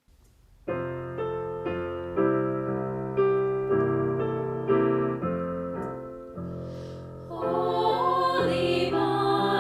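Piano playing a slow hymn introduction, chords struck roughly once a second, with singing voices coming in near the end.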